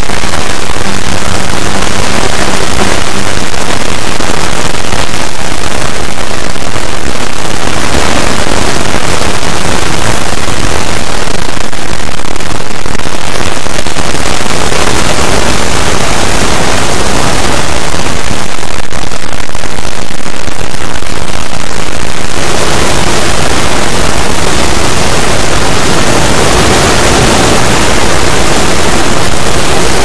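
A loud, even wall of noise from dozens of overlaid, sped-up copies of the same meme clip playing at once, so that no single sound can be picked out.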